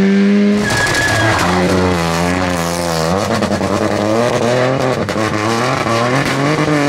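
Rally car engine at high revs. Its pitch steps down sharply about half a second in, with a burst of noise, and again about three seconds in, then wavers up and down.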